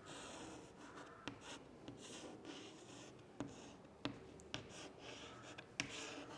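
Faint writing on a board: a run of short scratchy strokes with a few small sharp taps between them as a word is written out.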